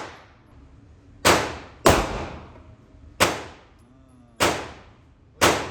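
Gunshots on a shooting range: five sharp shots at uneven spacing, each trailing off in a short echo.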